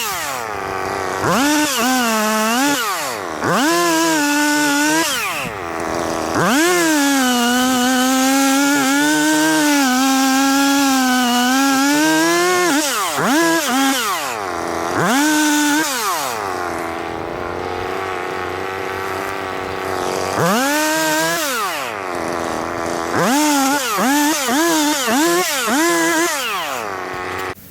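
Two-stroke chainsaw revving up and down again and again while cutting downed trees, its pitch dropping and holding steady during a longer cut of several seconds, then shutting off at the very end.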